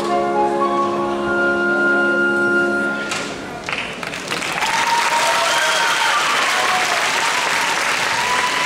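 The song ends on a last held chord of the accompaniment, with a high held note, which stops about three seconds in. Audience applause then fills the rest, with a few voices calling out over it.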